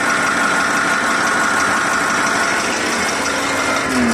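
KamAZ truck's diesel engine idling with a heavy knock, the frightening knock ("страшный стук") that comes and goes and brings up an engine error code. New injectors have not cured it.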